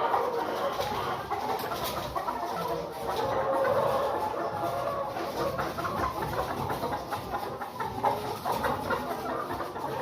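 A flock of laying hens clucking and calling, many birds at once and overlapping without a break.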